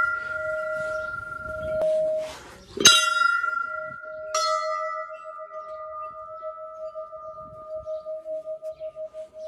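Hanging temple bell struck twice, about three seconds in and again a second and a half later. Each strike rings on in a long, slowly fading tone that wavers near the end, and the bell is already ringing from a strike just before.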